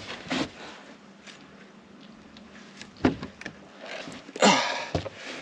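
Handling noise as a large musky is held and turned in the hands: a few soft knocks, about three seconds in and near the end, and a brief rustle about four and a half seconds in, over a quiet background.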